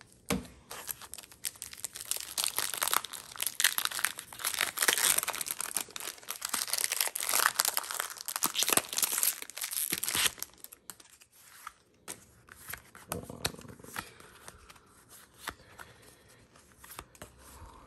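Foil wrapper of a Pokémon TCG booster pack crinkling and tearing as it is ripped open by hand, for about ten seconds. After that comes quieter rustling and light clicks as the trading cards are taken out and handled.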